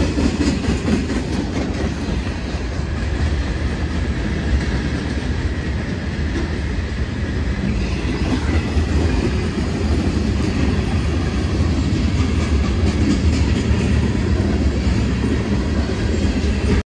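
Freight train of covered hopper cars rolling past close by: a loud, steady rumble of steel wheels on the rails.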